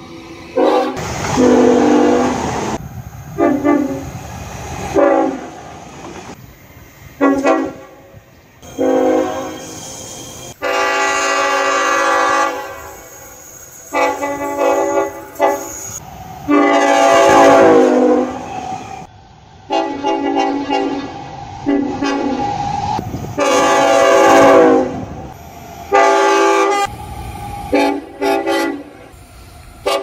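Queensland Rail Tilt Train horn sounding a long series of blasts, some short toots and some held for a second or two, each a chord of several tones. One long blast falls in pitch as the train passes, and the train's running rumble fills the gaps.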